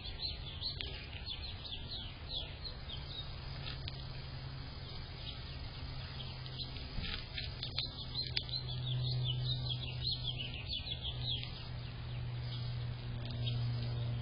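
Small birds chirping and twittering, many short high calls in quick succession, over a steady low hum that grows louder about two-thirds of the way through and again near the end.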